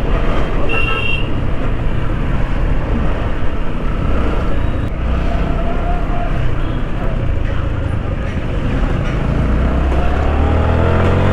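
Yamaha R15 V3's 155 cc single-cylinder engine running at low speed in dense street traffic, under steady road and traffic noise. A brief high beep comes about a second in.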